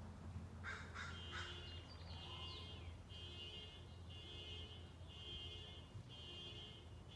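Faint crow cawing a few times about a second in, then a buzzy call repeating about once a second over a low steady hum.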